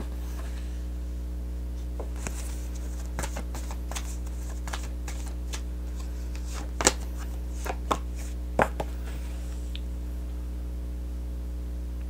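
Oracle cards being handled and dealt onto a cloth-covered table: scattered light taps and snaps of card on card, the sharpest about seven and eight and a half seconds in, over a steady low hum.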